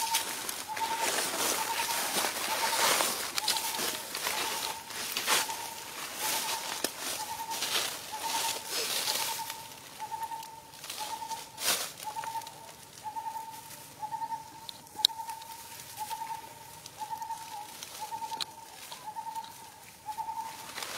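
A bird repeating one short, mid-pitched note about every two-thirds of a second, steadily and without a break, over crackling rustles of dry leaf litter that are busiest in the first half.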